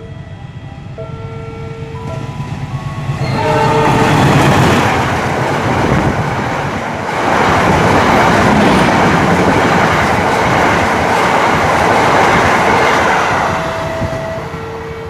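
A train passing close at speed: a loud rushing rumble of wheels and carriages that builds, holds for about ten seconds and then eases off. Short horn-like toots sound at the start, again just before the train arrives, and near the end.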